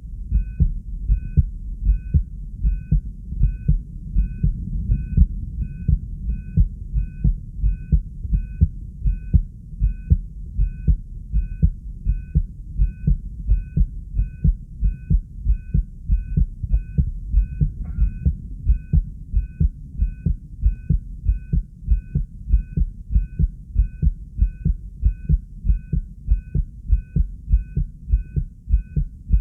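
Human heartbeat, a fast, regular train of low lub-dub thumps from a subject whose heart rate is raised by excitement.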